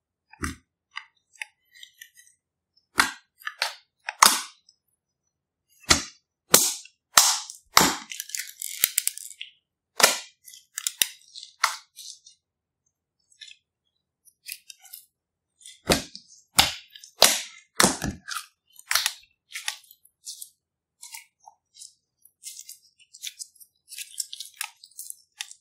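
Clear glitter slime being poked, squeezed and stretched by hand, giving off sharp, irregular pops and clicks as trapped air bursts. The pops come in quick clusters with quieter gaps between them.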